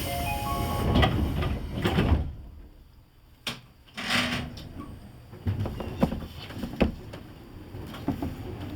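Train door-closing chime with the sliding doors running shut, then a near-quiet stretch broken by a short hiss of air and a few sharp clicks as the stopped train readies to leave.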